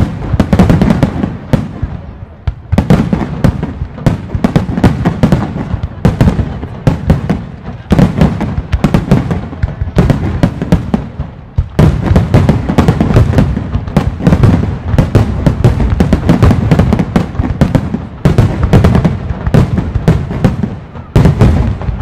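Aerial firework shells bursting in a dense barrage, many sharp bangs a second overlapping almost without a break. The barrage eases briefly just before the middle and then comes back loud and sudden.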